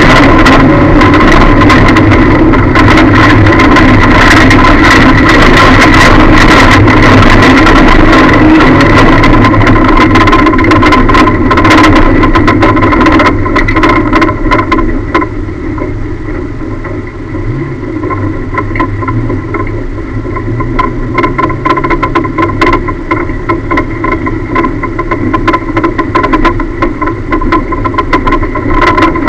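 Lada race car's engine heard from inside the stripped, caged cabin, loud and overloading the onboard camera's microphone, with constant rattling and knocking. About halfway through it drops much quieter as the engine eases to a steadier, lower run.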